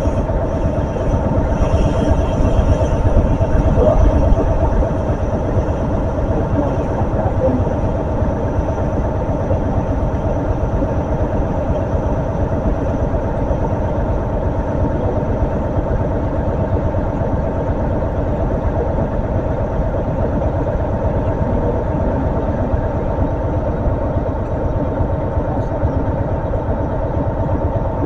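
Diesel train engine idling steadily, with a constant hum over a low rumble.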